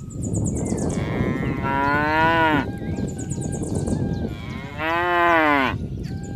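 Cattle mooing twice, each a long, loud call that drops in pitch at the end.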